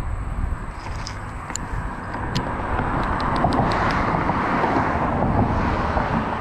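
A car driving past: a rush of tyre and road noise that builds over the second half. A few light clicks come as a fishing magnet is set down on the concrete.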